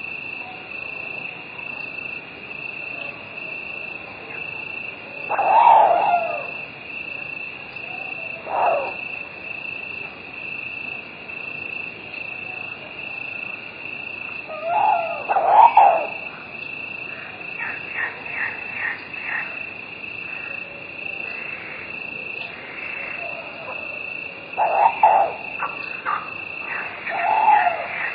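Night ambience: crickets chirring in a steady, high-pitched chorus. About five times, a short, louder call from another animal rises over it.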